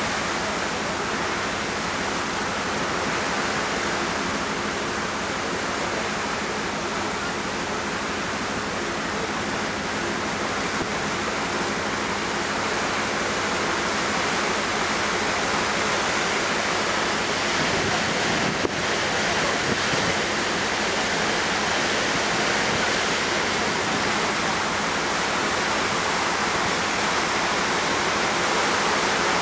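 Steady rushing noise of the ferry's churning propeller wash and wind on deck, with a faint steady low hum underneath and one brief click about two-thirds of the way through.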